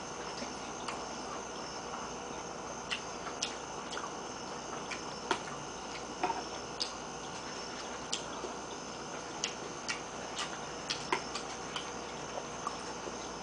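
Metal spoon and fork clinking and scraping against a ceramic soup bowl: a string of irregular light clicks, one or two a second, over a steady room hiss.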